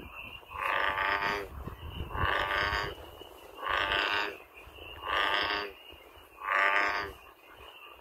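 American bullfrog calling: five croaks, each under a second long, repeating about every second and a half.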